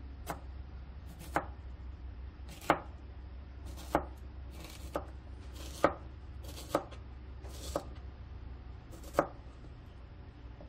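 Kitchen knife chopping nectarine into chunks on a cutting board: about nine sharp knocks of the blade on the board, roughly one a second.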